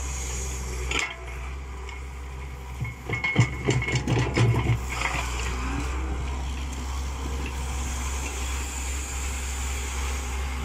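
Small IHI crawler excavator's diesel engine running steadily, with a sharp knock about a second in and a burst of metallic clanks and knocks about three to five seconds in as the machine works and moves.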